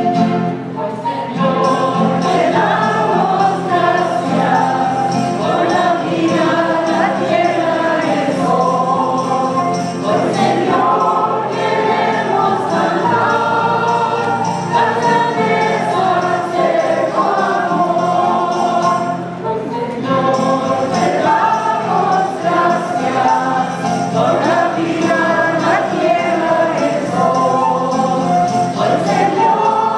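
Church choir singing a hymn with instrumental accompaniment: the closing hymn after the final blessing of Mass.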